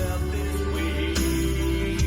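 Music playing through the 2016 Mitsubishi Montero Sport GLS Premium's car stereo, recorded on a phone inside the cabin, with heavy sustained bass and a few sharp beat strokes.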